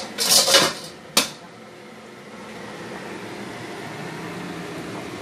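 Lid of a soup pot being taken off: a short clatter as it comes free, then one sharp clack about a second in as it is set down. After that a steady hum.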